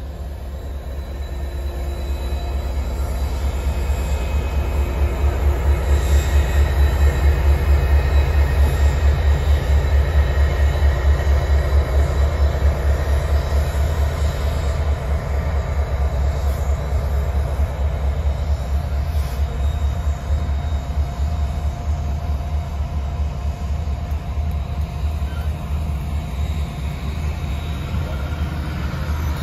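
Union Pacific train rolling past at close range: the trailing diesel locomotives and passenger cars, steel wheels on rail, with a heavy steady rumble. The rumble swells to its loudest about six to twelve seconds in and then eases a little as the cars go by.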